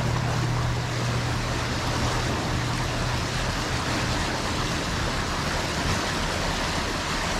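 Steady rush of river rapids, whitewater running over rocks. A low steady hum underneath fades out about four seconds in.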